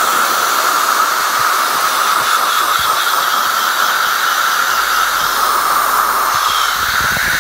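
Loud, steady hiss of gas escaping under pressure close to the microphone, even in level throughout.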